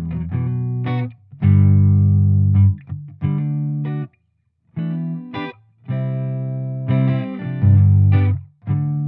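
Electric guitar through an amplifier, recorded with a T-bone RM700 ribbon microphone, playing chords and notes in short phrases, with a brief full stop about four seconds in.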